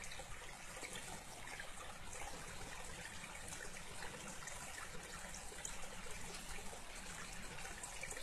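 A river running steadily: an even, unbroken rush of flowing water.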